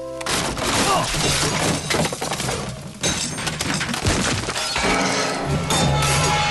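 A soft held music chord breaks off and a loud, dense jumble of crashing begins: glass shattering and wood breaking amid crackling bangs of roman-candle fireworks going off, with music still playing underneath.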